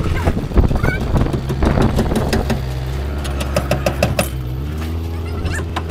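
An engine idling steadily nearby, its pitch rising briefly near the end, with a quick run of sharp metallic clicks and taps a little past the middle as parts are handled.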